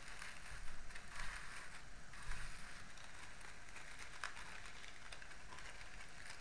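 Dry leaves and plant-fibre ties crackling and rustling as hands pull open a small leaf packet. The crackling is busiest in the first few seconds and thins out, with a single sharp click about four seconds in.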